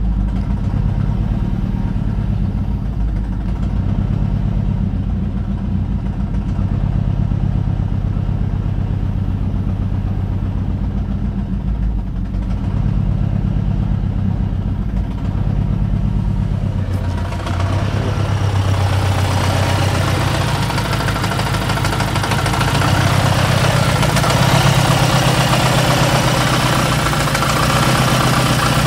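Saab 9-3's four-cylinder turbocharged Ecopower engine idling steadily, the engine of a video about an unspecified engine problem. At first it is heard muffled from inside the cabin; from about halfway through it is heard at the open engine bay, louder and with more mechanical clatter.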